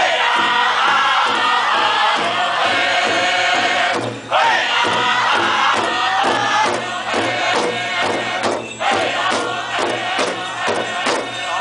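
Northern-style powwow drum group: several men singing together in unison while striking one large shared drum in a steady beat. The singing breaks off briefly about four seconds in, then comes back in.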